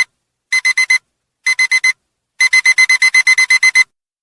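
Electronic alarm-clock beeping that signals the countdown timer has run out. It plays high, quick beeps in sets of four, then, a bit past two seconds in, a longer run of about a dozen rapid beeps.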